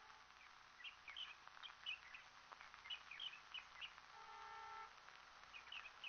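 Faint small birds chirping: short high chirps scattered all through. A brief steady tone sounds a little after four seconds in.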